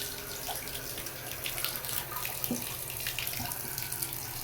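Water running from a tap into a bathtub, a steady rush with scattered small splashes.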